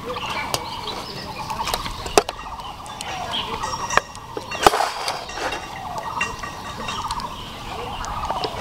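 Metal utensils clicking and clinking against steel pots and a bowl as cooked rice is scooped out, the loudest clink about halfway through. Behind it, fowl-like birds chatter without a break.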